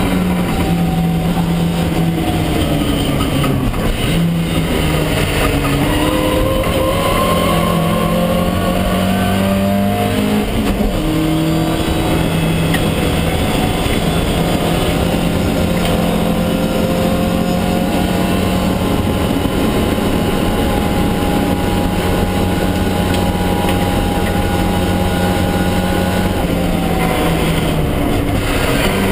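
Lotus Twin Cam four-cylinder engine of a Mk1 Ford Escort race car running hard under racing load, heard from inside the stripped cabin. Its note holds steady for long stretches, then dips and climbs again about four seconds in, about ten seconds in, and near the end.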